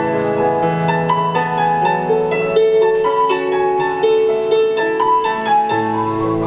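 Solo piano playing a melody over held bass notes.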